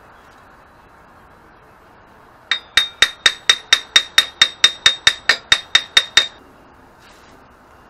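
Hammer tapping on the steel sprocket hub of a mini bike's rear axle: about seventeen quick, even, ringing metal-on-metal blows, roughly four a second, starting a couple of seconds in and lasting just under four seconds.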